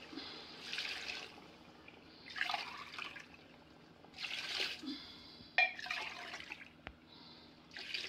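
Water pouring from a jug into a steel tumbler and the tumbler being emptied into an aluminium cooking pot, in about five splashing pours roughly every second and a half. A sharp knock comes about halfway through.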